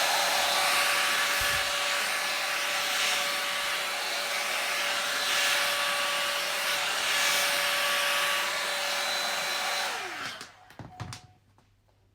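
Two-in-one square hot-air hairdryer brush blowing steadily with a constant motor whine. About ten seconds in it is switched off: the whine falls away as the motor spins down, followed by a few short knocks as it is handled.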